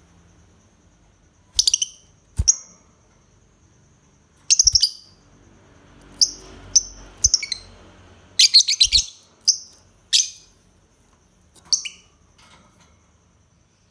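Lovebird giving short, sharp, high-pitched chirps, about a dozen in irregular bursts, with a quick run of calls a little past the middle. A faint steady high tone sits underneath.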